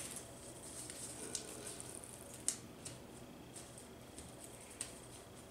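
Scissors snipping folded paper, with paper rustling between the snips: a handful of short, sharp snips, the loudest about two and a half seconds in.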